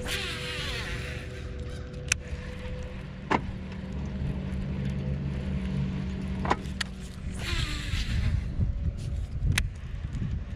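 A small fishing boat's motor hums steadily. A baitcasting reel whirs briefly as a cast goes out at the start and again about seven seconds in, and there are a few sharp knocks.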